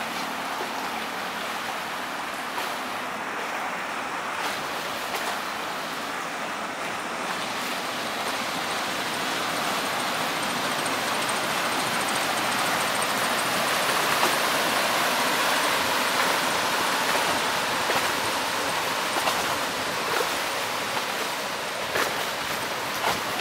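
Churning wash of water along the hull and stern of a passing inland motor cargo ship: a steady rush that grows louder about halfway through as the stern and its propeller wash go by.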